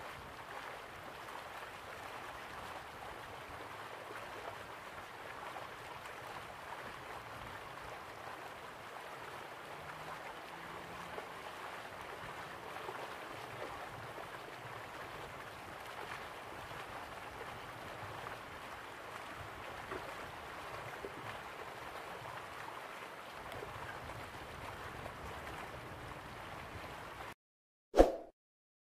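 Steady rushing, gurgling water with a faint low hum underneath. It cuts off suddenly near the end, and a short, loud, bright sound effect follows.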